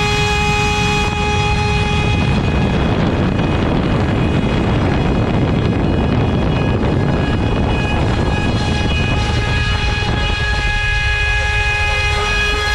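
CNC router spindle running at 24,000 rpm with an 8 mm cutter milling wood: a steady, high whine. A rough cutting noise takes over from about two seconds in and gives way to the whine again about ten seconds in.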